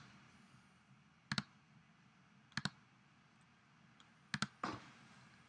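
Computer mouse clicking: single clicks about 1.3 and 2.6 seconds in, then a quick cluster of clicks near the end.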